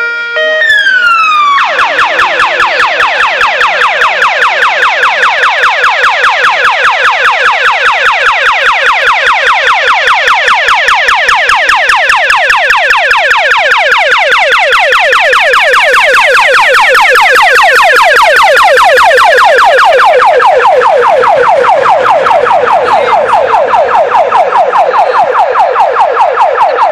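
Fire engine siren, very loud and close. It opens with a held tone that glides down, then switches to a fast yelp of several sweeps a second. The pitch of the yelp sinks about two-thirds of the way through.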